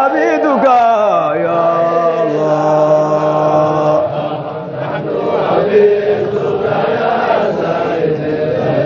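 Men chanting a Qadiriyya Sufi dhikr together. A long low note is held through the first few seconds, then the voices move more freely.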